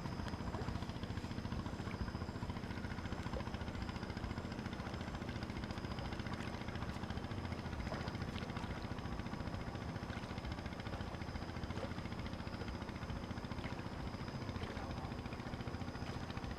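Steady low rumble of wind and surf at the shore, with a faint, steady high-pitched whine above it.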